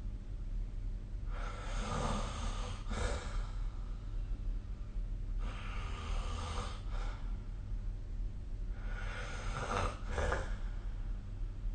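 A sleeping person snoring: three rasping breaths come about four seconds apart, each lasting a second and a half to two seconds, over a steady low hum.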